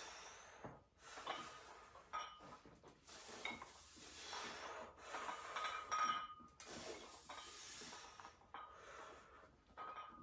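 A person breathing hard in long, hushy breaths through a set of barbell skull crushers, with light metallic clinks from the iron plates on the bar.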